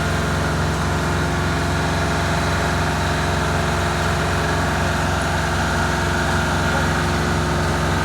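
Engine of asphalt paving equipment idling steadily at an unchanging pitch.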